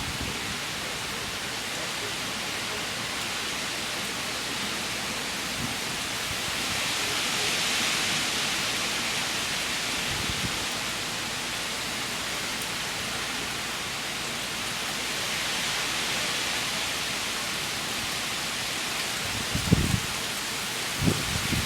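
Heavy rain and gusting wind of a hurricane: a steady hiss that swells twice, about seven seconds in and again about sixteen seconds in. A few short low thumps come near the end.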